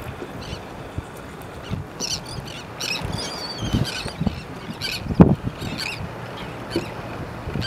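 Birds squawking repeatedly in short, wavering calls over steady background noise, with a dull thump about five seconds in.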